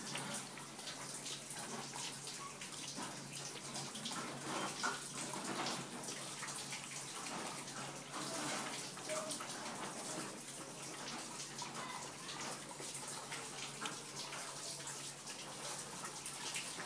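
Boerboel puppy lapping milk from a plastic bowl: a continuous run of wet lapping and slurping.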